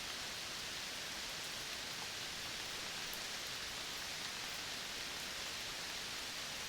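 Steady, even hiss of a tropical forest soundscape, with a few faint high ticks here and there.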